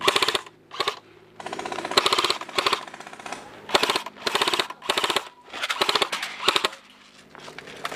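Airsoft electric guns firing in full auto: a string of short bursts of very rapid clicks, each about half a second long, with brief pauses between them.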